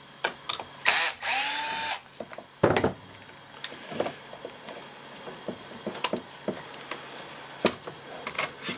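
Small power tool motor, a cordless drill/driver, run in two short bursts early on, each spinning up to a steady whine, as the saw is unscrewed during disassembly. It is followed by a single knock and scattered light clicks of parts being handled.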